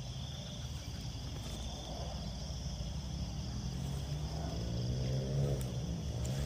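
Night insects chirring steadily in high continuous tones over a low, steady droning hum.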